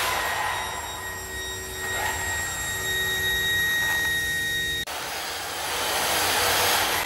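Electric RC truggy running on bare concrete: a steady high motor whine over the hiss and scrub of its tyres. The sound breaks off abruptly about five seconds in, then picks up again louder and noisier.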